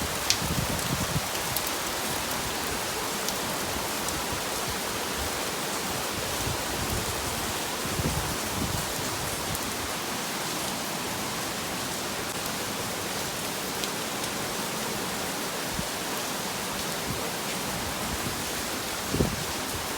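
Steady rain falling, an even hiss with scattered drop ticks and a few heavier low thuds of drops, near the middle and just before the end.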